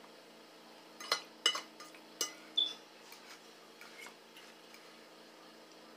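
Cutlery clinking against plates and dishes during a meal: a handful of sharp clinks in the first half and one short ringing ping, then only faint small taps.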